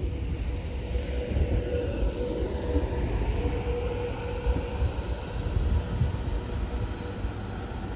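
X'Trapolis electric train rolling slowly into the platform. A low rumble runs with a thin squealing tone that comes and goes, and faint higher squeals join it now and then.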